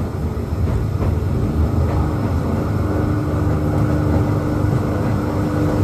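Electric railway car running, heard from on board: a steady low rumble of wheels on the track, with a steady motor hum that comes in about a second and a half in.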